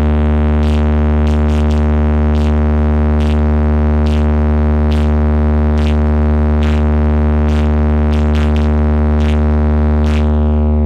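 Sound-check track: a loud, deep buzzing bass tone held steady at one pitch, meant to test bass and speaker vibration, with faint ticks about twice a second.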